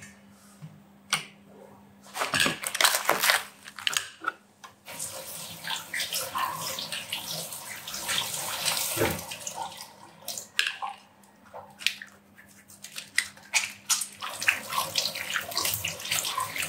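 Kitchen tap running into a stainless steel sink, splashing over a metal colander as food is rinsed by hand and then over hands being washed. Near the start, a few knocks of a stainless steel pot being handled on the hob.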